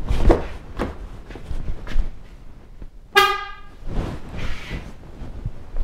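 A single Hella aftermarket trumpet horn on a Toyota RAV4 Prime gives one short honk about three seconds in. Only one of the pair is wired up, so it is a test of a single horn's tone. A few knocks come before the honk.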